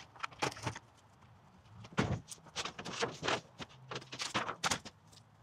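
A series of irregular knocks and clatters, about a dozen sharp hits, with a quieter gap about a second in.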